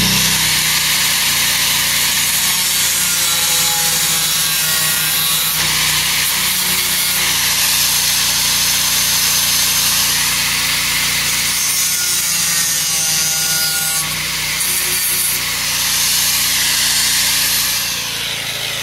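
Angle grinder running continuously as it grinds down metal studs welded to the inside of a steel side panel.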